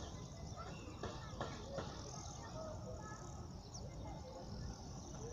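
Faint outdoor ambience: a steady low rumble with scattered short bird chirps and whistles, and a few light clicks about a second in.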